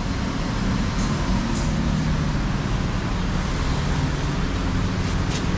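Steady machine hum with an even hiss, and a couple of faint clicks.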